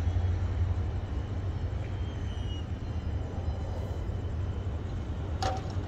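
Low rumble of a departing freight train slowly fading, with one sharp knock near the end.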